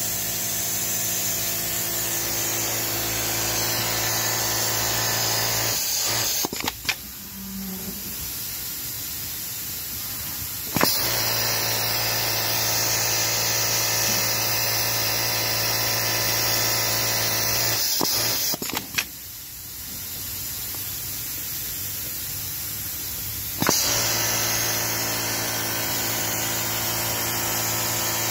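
Siruba industrial bottom-hem sewing machine stitching a T-shirt hem, running steadily with a low hum. It stops twice for a few seconds, about six and about nineteen seconds in, and each time starts again with a sharp click.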